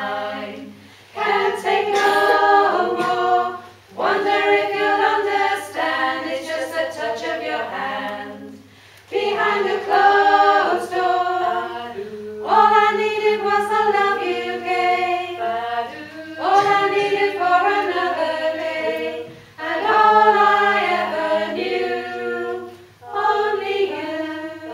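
Six-woman choir singing a cappella in close harmony, in phrases of a few seconds with short breaks for breath between them.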